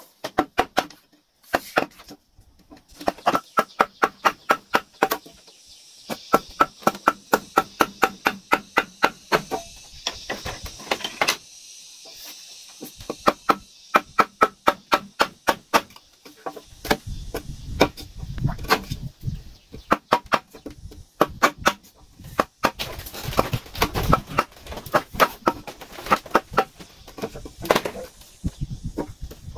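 Rapid, regular blows of a hand tool cutting into a wooden pole, about four or five a second, in several bouts with short pauses. The later blows land with a heavier thud.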